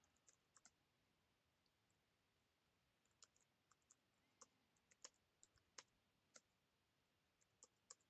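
Near silence with faint, irregular computer keyboard keystrokes: a few in the first second, a pause, then more scattered clicks from about three seconds in.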